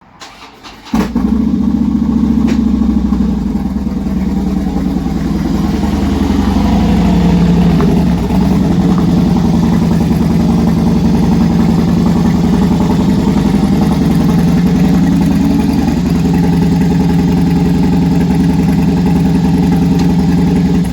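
Demolition derby car engine starting about a second in and running loud and steady, with a slight rise and fall in revs, then cutting off suddenly.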